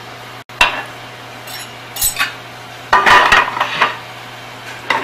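Metal pans and plates knocking and clattering on a kitchen range in several separate sharp strikes. The loudest comes about three seconds in and rings briefly.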